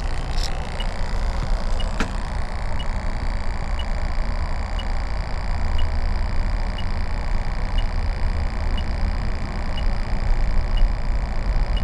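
Electronic refrigerant leak detector ticking slowly and evenly, about once a second, as it is held at a freshly replaced Schrader valve core. The steady slow tick means it finds no refrigerant leaking. A steady low rumble runs underneath, with a single click about two seconds in.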